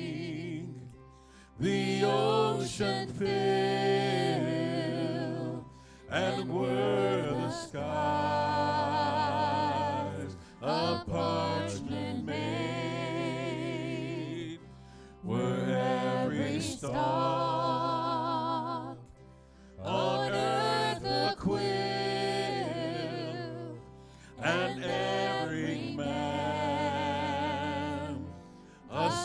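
Live church worship band performing a slow hymn: men's and women's voices singing together with vibrato in long phrases of four to five seconds each, with short breaths between, over band accompaniment.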